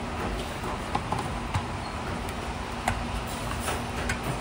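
Steady kitchen background hiss with a faint low hum, and a scatter of small irregular ticks and drips from canned green peas draining in a wire-mesh strainer.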